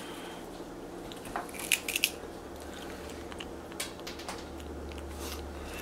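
Baby capuchin monkey chewing crisp puffed broccoli curls: a scatter of short crunches, several close together about two seconds in and a few more spaced out later.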